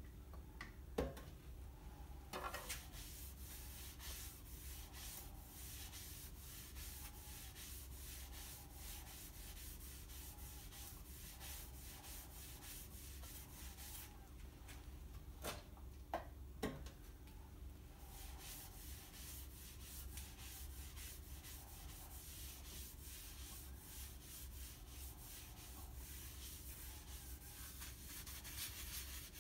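Cloth rubbing boiled linseed oil into an oak bowl, a faint, quick swishing of repeated wiping strokes over a steady low hum. A few light knocks come through, twice near the start and twice about halfway.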